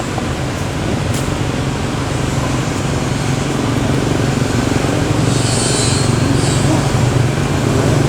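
A steady low engine rumble that grows a little louder a few seconds in, with a brief high hiss near the middle.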